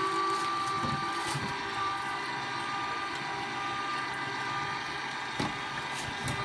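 Vertical slow (masticating) juicer's motor running with a steady hum and whine, with a few light knocks as the machine is handled.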